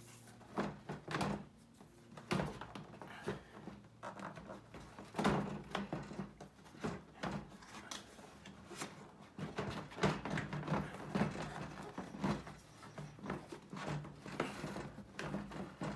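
Irregular plastic clicks, knocks and scrapes of a VW Mk5 Jetta headlight assembly being worked loose by hand and pulled out of its mounting.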